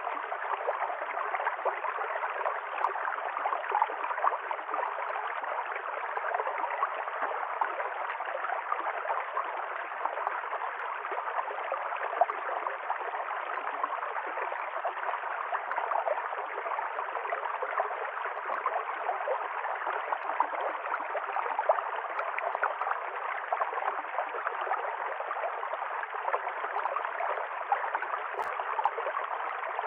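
A river stream flowing, its water gurgling and splashing steadily over stones.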